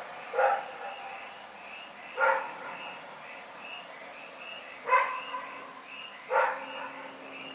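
A dog barking at night: four single barks, a second and a half to two and a half seconds apart.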